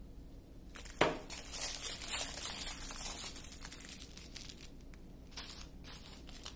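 Small plastic bags of diamond-painting drills crinkling and rustling as they are handled and shuffled on the table, with a sharp click about a second in.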